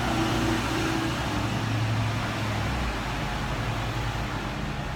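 Steady mechanical rumble and hum with a low drone that fades out a little past halfway.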